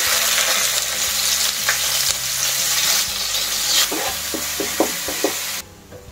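Chopped onions dropped into hot oil in a wok, sizzling at once, then stirred with a spatula, with a few short taps and scrapes of the spatula on the pan in the last couple of seconds. The sizzle cuts off suddenly just before the end.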